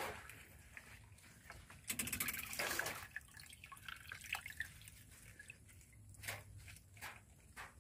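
Water sloshing and dripping as hands wash leafy greens in a small saucepan, with a louder stretch of splashing about two seconds in, then scattered drips and splashes.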